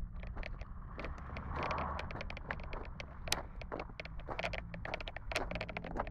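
Wind rumbling on a handheld phone's microphone with frequent crackles and clicks, over a car engine running faintly at a distance.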